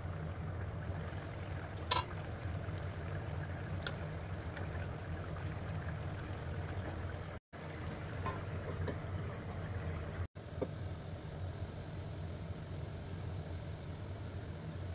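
Steady low hum of an induction cooktop running, with the soft bubbling of a fish curry simmering in the wok. A sharp click about two seconds in.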